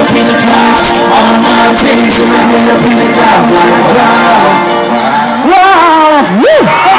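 Loud live pop music from a concert PA: a male vocal group singing over a band. Near the end a single voice wavers and then sweeps up high and back down.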